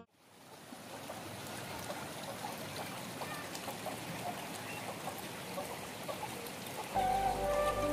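Steady hiss of running water with faint scattered ticks through it; background music comes in near the end.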